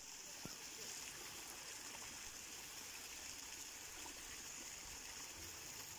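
Small rockery waterfall splashing steadily down over stones into a pond.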